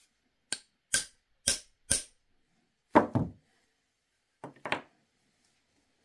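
Hammer blows setting press-stud (snap fastener) buttons: four sharp knocks about half a second apart, a loudest double blow about three seconds in, and a last pair near the end.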